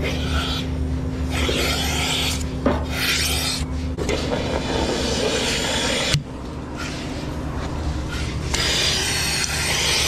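Milking unit being put on a cow: air hisses into the open teat cups under vacuum in several bursts, over a steady low hum. The hiss cuts off sharply about six seconds in and comes back near the end.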